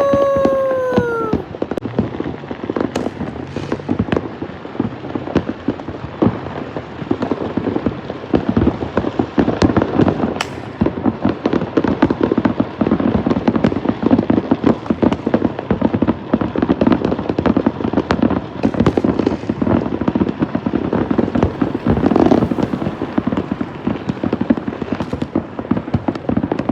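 Continuous New Year's Eve barrage of fireworks and firecrackers: unbroken crackling and popping, with louder bangs here and there. A whistling tone falls in pitch and ends about a second in.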